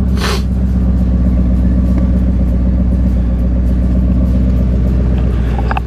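2001 Ford F-250's 5.4-litre Triton V8 idling just after start-up, with one sharp burst about a quarter second in. The engine has been popping from a misfire, which the owner later puts partly down to the air intake being left off.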